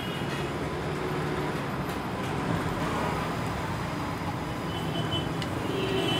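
Steady traffic noise from a busy city street, an even rumble of passing vehicles.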